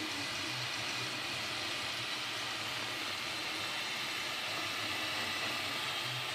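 Up! Plus 3D printer running a print: a steady fan whir, with short low hums from its stepper motors that come and go as the print head and platform move.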